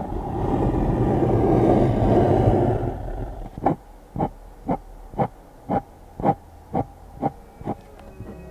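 Background music: a dense rumbling swell that fades out about three seconds in, followed by a run of evenly spaced soft beats, about two a second, that stop near the end.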